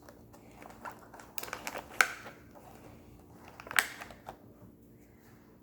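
Slime-kit pieces being handled: a scatter of light clicks and taps, with two sharper knocks about two seconds in and just before four seconds.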